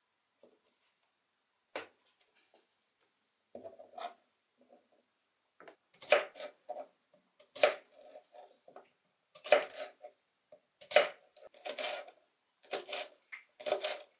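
Kitchen knife slicing food on a plastic cutting board: a few faint cuts at first, then from about six seconds in a run of sharp knocks as the blade strikes the board, with softer cutting sounds between them.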